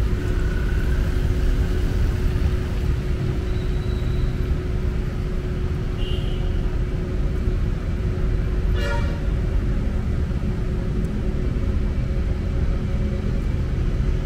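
Steady low rumble of outdoor street and vehicle noise with a constant hum, and one short car horn toot about nine seconds in.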